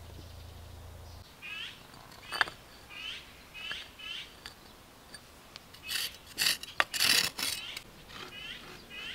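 A bird calling in a series of short downward-sweeping chirps, about two a second. Crushed gravel scraped and crunched by a gloved hand in a few loud rasping bursts about six to seven and a half seconds in, with a couple of sharp clicks.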